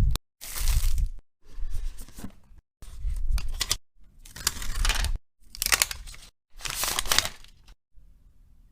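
Packaging being handled, crinkling and tearing, in a string of about seven short clips cut sharply one after another, then much quieter for the last second.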